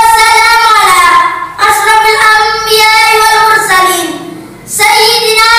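A boy's high, loud voice declaiming in Arabic in a drawn-out, sing-song oratorical chant: long held phrases, with a pause of about a second just past the middle.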